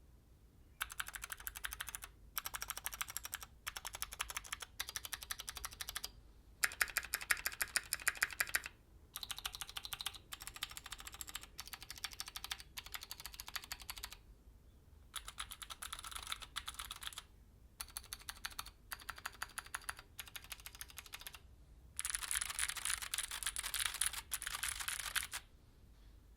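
Typing on a stock Keychron Q6 full-size mechanical keyboard with clicky Gateron G Pro Blue switches: fast runs of keystrokes in bursts of one to two seconds, separated by short pauses.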